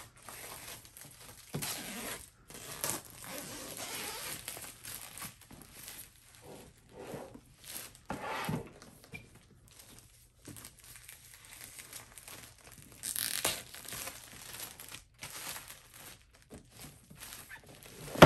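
Clear plastic shrink-wrap being torn and peeled off a cardboard toy box, crinkling and rustling in irregular bursts with short pauses. A sharp knock comes at the very end as the box is handled on the table.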